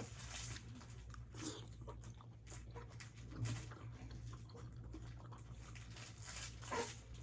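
Close-miked chewing and crunching of food, with many short mouth clicks.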